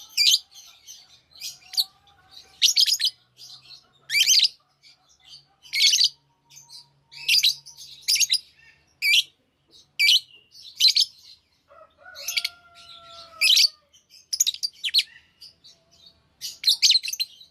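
Lovebirds chirping: a rapid series of short, shrill, high-pitched calls, roughly one or two a second, with faint lower whistles between them.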